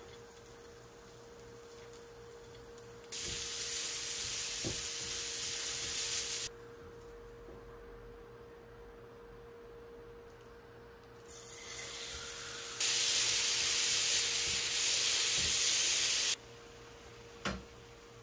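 Julienned carrots and then beef frying in a small square frying pan on a gas burner, sizzling in two loud stretches of a few seconds each that start and stop abruptly. A utensil taps once or twice in between.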